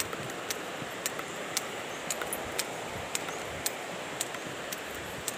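Footsteps on a concrete footpath: a short, sharp step sound about twice a second at an even walking pace, over a steady outdoor hiss.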